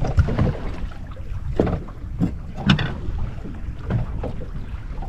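Wind buffeting the microphone aboard a small fishing boat, a steady low rumble, with several short sharp knocks through it.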